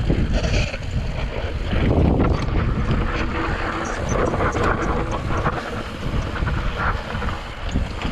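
YT Decoy electric mountain bike riding down a rocky trail: wind buffets the camera microphone, with many short clicks and knocks from the tyres and frame going over rock.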